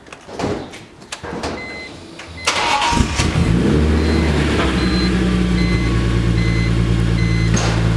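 A few clicks, then the turbocharged BMW E46 M3's S54 straight-six cranks and starts about two and a half seconds in, its revs rising briefly before it settles into a steady idle. A car's electronic warning chime beeps repeatedly.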